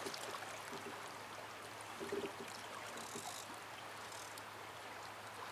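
Shallow river water flowing and rippling steadily, with a short low pitched sound about two seconds in.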